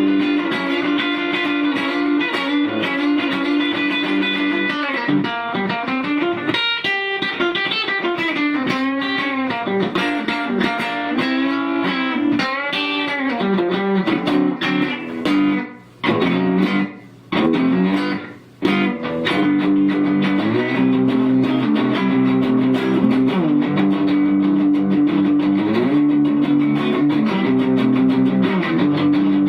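Rickenbacker 325 short-scale electric guitar played through an amplifier: a lead line of moving single notes and chords, with three short breaks about halfway through.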